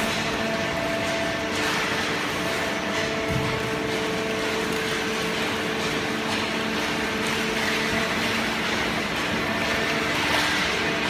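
Hydraulic carton baler's pump unit running, a steady machine hum with a few constant tones over a noisy wash.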